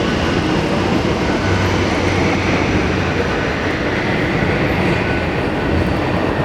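Steady, loud rumbling background noise without breaks.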